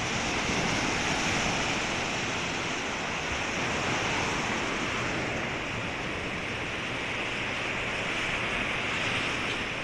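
Small Lake Michigan waves breaking and washing up the beach: a steady surf noise that swells and eases gently.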